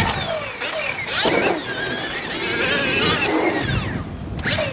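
Motocross dirt bike engine revving hard, its pitch rising and dropping off several times as the throttle is worked.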